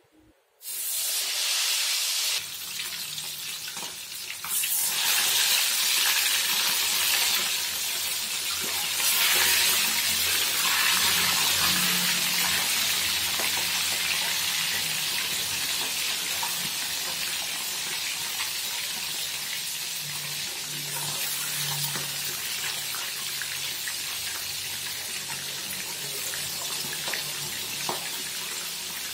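Fish deep-frying in hot oil in a wok, a loud steady sizzle. It starts suddenly about half a second in and grows louder in steps over the first ten seconds as more pieces go into the oil.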